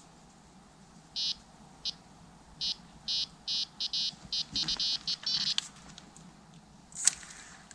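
Electronic carp-fishing bite alarm bleeping as a fish pulls at the line: single bleeps spaced out at first, then a quick run of bleeps about four seconds in as the fish takes the bait. A sharp knock comes near the end.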